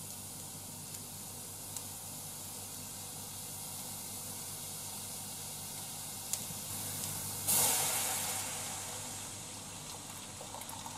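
Sliced onions sizzling steadily in a small hot pan; about seven and a half seconds in, water poured into the pan sets off a sudden loud hiss of steam that fades over the next two seconds as the pouring goes on.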